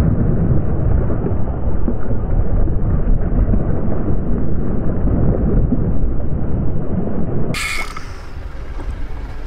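A loud, steady low rumble of wind buffeting the microphone at sea. About seven and a half seconds in it cuts to a fishing reel's drag buzzing in short bursts as a hooked fish pulls line against the bent rod.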